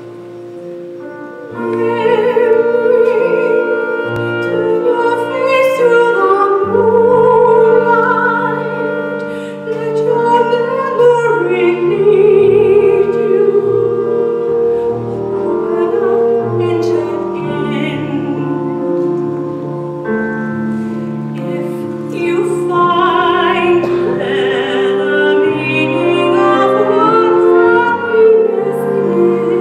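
A woman sings a slow stage-musical ballad with instrumental accompaniment. The voice comes in about two seconds in, after a quieter instrumental opening, and holds long notes with vibrato.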